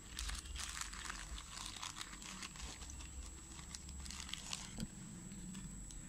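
Clear plastic bag of small electronic components crinkling as it is handled and moved, a run of small irregular crackles.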